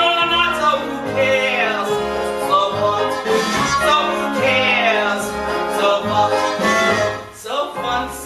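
A woman singing a show tune, backed by a small band with a steady bass beat.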